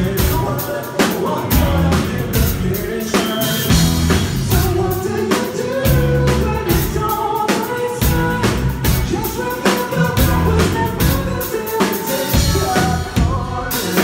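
Live band playing loudly: a male singer over a steady drum-kit beat and electric guitar.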